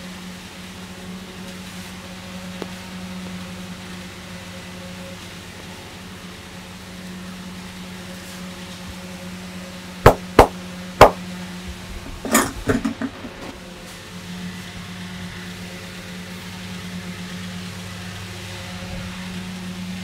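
Hands striking the head during a barber's head massage: three sharp smacks within about a second, about halfway through, then a quick run of softer knocks.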